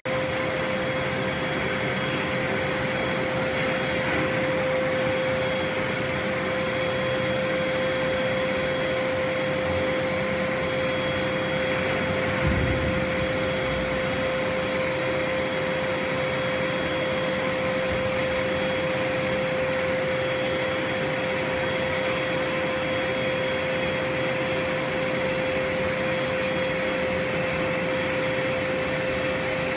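Large hydraulic forming press running under load as its die presses down on a hot steel plate: a steady hiss with a constant humming whine, and one soft thump about twelve seconds in.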